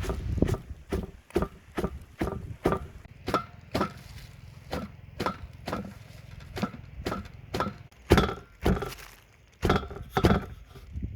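A knife chopping on a wooden cutting board: a steady run of sharp strokes, about two a second, with a brief pause near the end.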